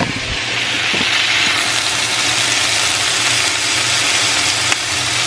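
Sliced onions, peppers and root vegetables sizzling in olive oil in a speckled enamel stockpot: a steady frying hiss that swells about a second in, over a low steady hum. A couple of handling knocks come in the first second.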